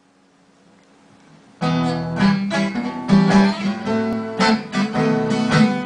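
Instrumental intro of a song: strummed acoustic guitar chords start abruptly about a second and a half in, after a faint hiss.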